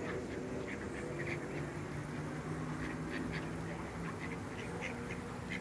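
A group of ducks giving many short quacks and calls in quick succession, busier toward the end, over a steady low hum.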